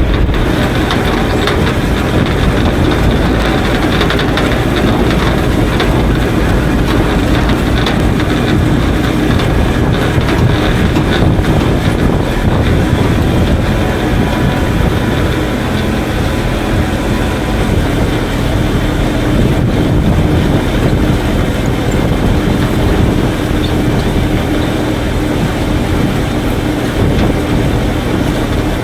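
Heavy farm machinery running steadily while feed is being made: an engine's low drone under a dense, even mechanical noise.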